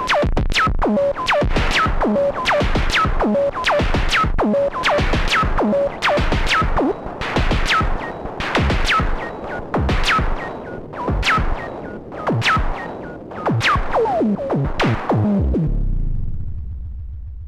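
Moog DFAM analog percussion synthesizer playing a sequenced pattern of drum hits, about two a second, each with a fast downward pitch sweep. Near the end the pattern fades out, leaving a low tone that dies away.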